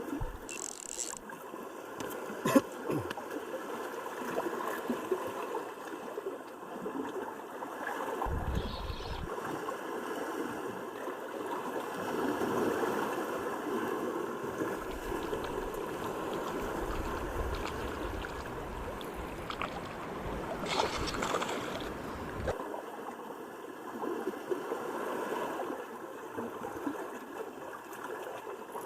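Water washing and gurgling along the shoreline as a steady rush, with deep rumbling stretches in places and one sharp click about two and a half seconds in.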